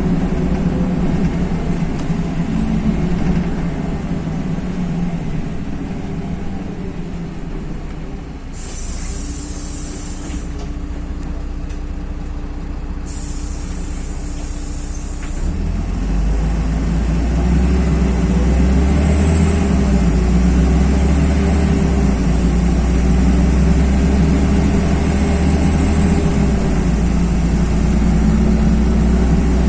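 LiAZ-5292.21 city bus heard from inside the cabin, stopping: a hiss of compressed air starts about nine seconds in and lasts some four seconds. From about sixteen seconds in, the diesel engine pulls away, its low drone louder and rising in pitch.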